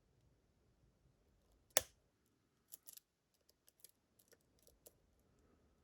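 Lock pick and tension tool working the pins of a Medeco-style challenge lock: one sharp click about two seconds in, then a run of small, faint metallic clicks as the pins are probed.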